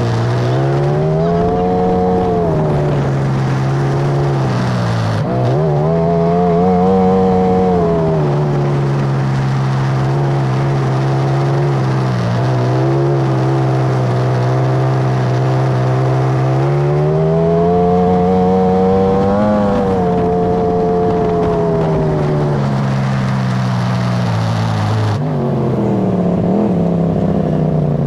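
Polaris RZR side-by-side's engine running under way on a dirt trail, its pitch rising and falling several times as the throttle is opened and eased off. Near the end it drops back to a lower, steady note as the machine slows.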